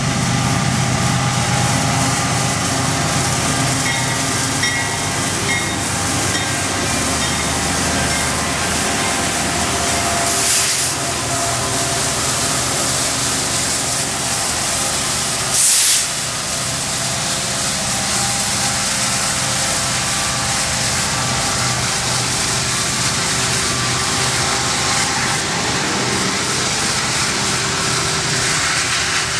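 Freight train passing close by: the BNSF diesel locomotives run past, then loaded coal hopper cars roll by with steady wheel and rail noise. Two brief, loud hissing bursts come about ten and sixteen seconds in.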